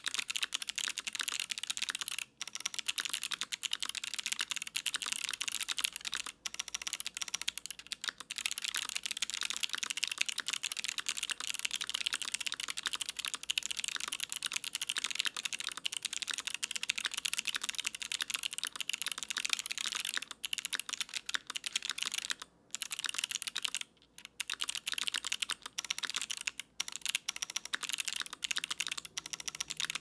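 Fast, continuous typing on a DriftMechanics Austin mechanical keyboard fitted with lubed Kailh Box Jade clicky switches in an aluminium plate, under GMK keycaps: a dense run of sharp, crisp clicks, broken by a few brief pauses.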